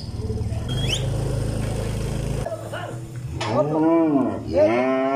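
A cow lowing twice, two long moos that each rise and fall in pitch, starting a little past halfway. Before them a low steady hum cuts off about two and a half seconds in.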